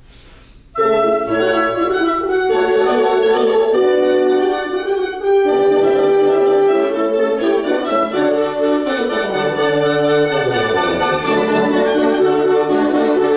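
Woodwind and horn sections playing a loud, sustained passage together, coming in suddenly about a second in, with a descending line in the low instruments later on.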